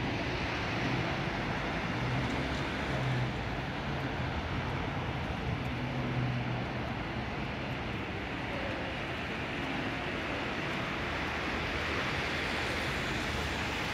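Steady city traffic noise from the street below, with a low vehicle hum that rises and falls twice.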